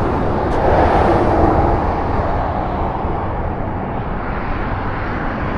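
Road traffic passing on a busy road: a steady rush of vehicle noise that swells about a second in as a vehicle goes by, then fades slowly.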